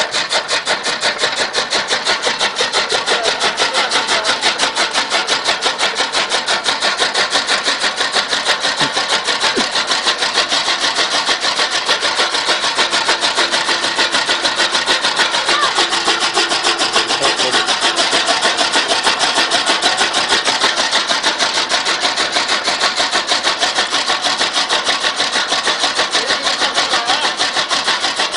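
Bicycle-driven chaff cutter (fodder chopper) with a large flywheel running steadily, its blades and gearing making a fast, even clatter of several strokes a second.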